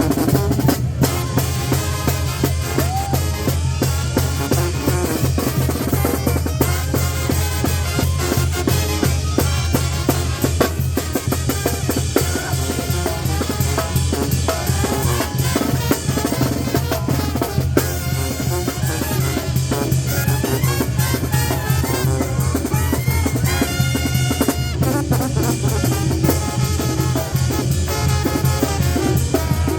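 Mexican carnival banda playing live: drums keep a steady driving beat over a deep, continuous bass line, with the band's melody above.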